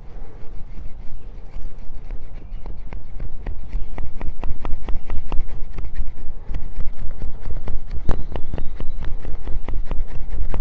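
A convex-grind bushcraft knife shaving curls off a hard, seasoned wooden stick: repeated short scraping clicks as the blade is pushed along the wood, several a second, growing denser after about two seconds, over a low rumble. The convex edge keeps digging in deep rather than gliding over the wood.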